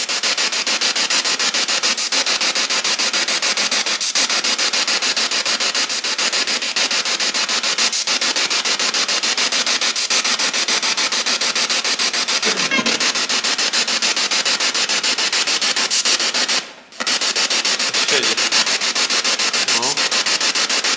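Loud radio static from a ghost-box device, played through a small JBL portable speaker. It is chopped into rapid, even pulses as the radio sweeps, and cuts out briefly about four seconds before the end.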